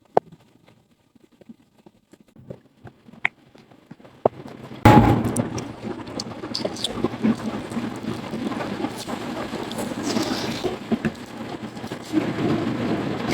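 Packaging being opened: faint clicks and rustles, then about five seconds in a sudden loud, continuous crinkling and crackling of plastic wrapping being torn and handled.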